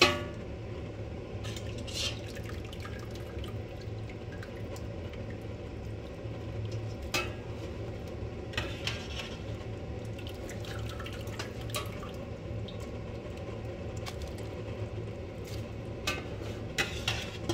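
Metal slotted spoon clinking and scraping against a stainless steel cooking pot while chicken and sauce are moved around. There is a sharp clank right at the start and scattered lighter clinks after it, over a steady low hum.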